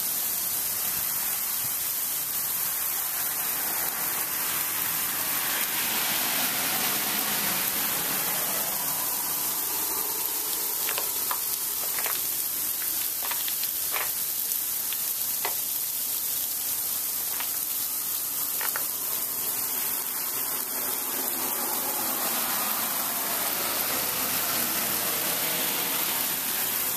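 Ice pellets (sleet) falling steadily, a continuous hiss, with a few sharper ticks of pellets striking close by in the middle.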